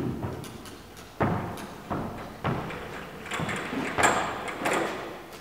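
A child's feet knocking against an indoor climbing wall while being lowered on a top rope: several separate thumps, echoing in the hall.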